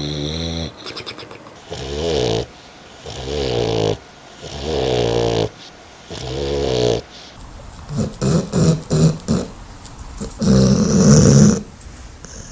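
A sleeping dog snoring: drawn-out buzzing snores about every second and a half, then a run of quick fluttering snores and a louder snore near the end.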